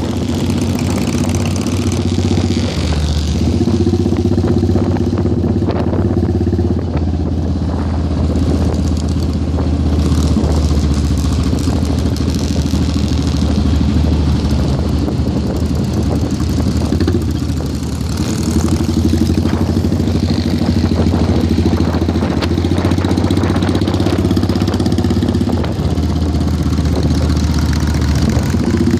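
Motorcycle engine running at a steady cruise, heard from on the moving bike with wind rushing over the microphone. The engine note drops away briefly a few times and then picks up again.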